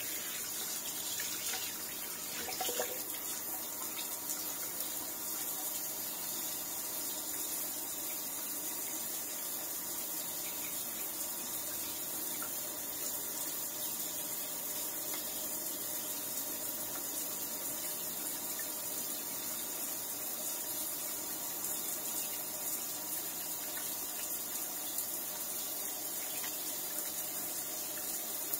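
Kitchen tap running steadily into a sink while a juicer's strainer and chamber are rinsed clean of pineapple pulp under the stream, with a few light knocks about three seconds in.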